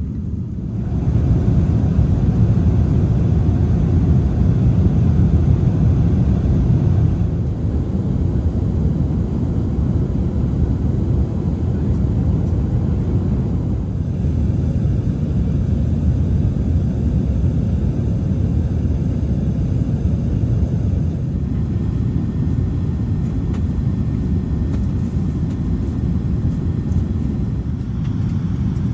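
Steady low rumble of engine and airflow noise inside an Airbus A380 cabin in cruise. It grows louder about a second in and eases a little around seven seconds in.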